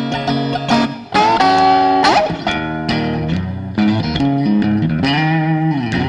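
Electric guitar music over a bass line: an instrumental blues passage, with bent notes sliding up in pitch about a second in.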